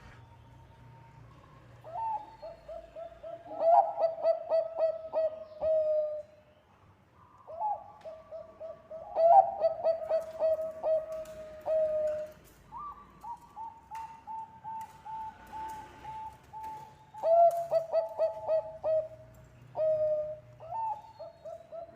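Bangkok-type perkutut (zebra dove) cooing. Each of about five phrases opens with a short, higher note and runs into a quick string of short coos at one pitch.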